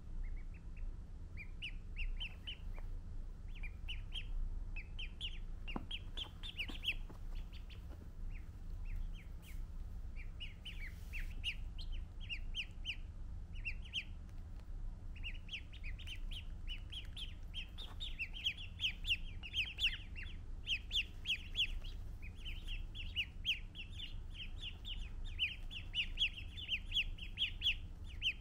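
Ducklings peeping: runs of short, high-pitched peeps in quick succession, coming more often and louder in the second half.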